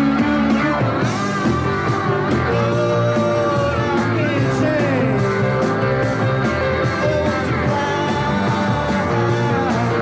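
Live rock band playing: electric guitars with lines that slide up and down in pitch, over bass and drums.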